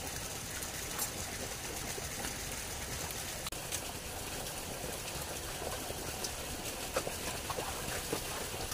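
Steady trickle of water running over rocks in a small stream, with a few faint clicks and knocks.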